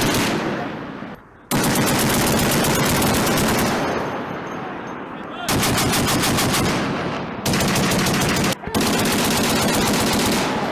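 An M2 Browning .50 caliber heavy machine gun firing a long, rapid burst, followed by more long bursts from belt-fed machine guns. Each burst starts and stops abruptly, with brief gaps between them.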